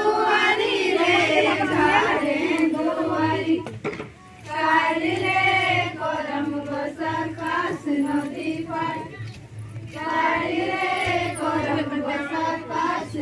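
A group of women's voices singing a Santhali karma folk song in unison, in long phrases with a short break about four seconds in, over a low pulsing beat.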